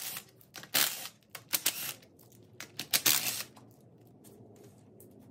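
Cordless impact driver hammering in several short bursts, loosening the extension housing bolts on a Chrysler A-904 automatic transmission, then falling quiet after about three seconds.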